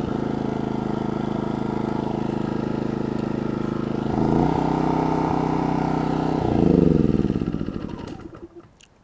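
Maxpeedingrods MXR4000GT inverter generator engine running steadily just after an electric start. Its note shifts about four seconds in, then falls in pitch as the engine winds down, and it stops near the end.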